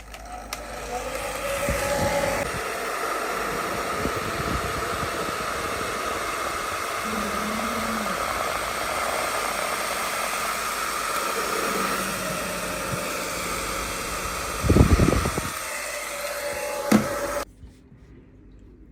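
Hot-air blower running steadily, heating the GoPro's screen to soften its adhesive, with a couple of knocks near the end before it is switched off abruptly.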